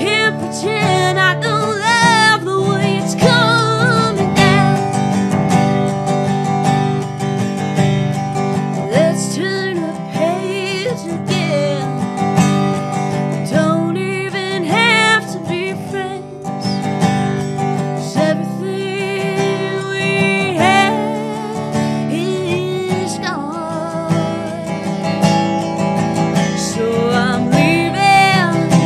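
A woman singing with a wavering, full voice while playing a round-neck resonator guitar with a metal cone, its steady chords ringing under the melody.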